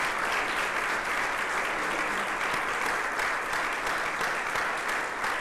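An audience applauding steadily, many hands clapping.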